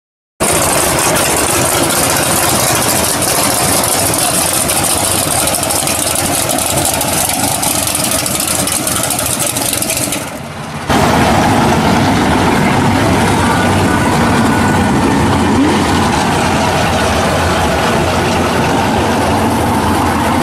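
Engine of a 1941 Willys pro street drag car idling loudly through its open side-exit exhaust pipes, with a short drop in level about ten seconds in.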